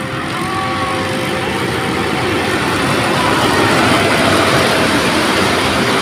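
Inflatable tubes sliding down a rainbow slide's ridged plastic matting: a steady rushing rumble that grows louder over the first few seconds as the riders come closer.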